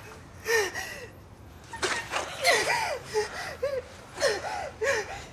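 A woman gasping and whimpering in distress, a series of about six short, high-pitched strained cries.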